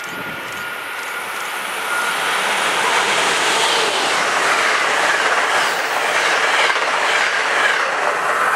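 Passenger train of stainless-steel coaches hauled by an HHP-8 electric locomotive passing at speed, its wheels rushing and clattering along the rails. The rush builds about two seconds in and stays loud after that.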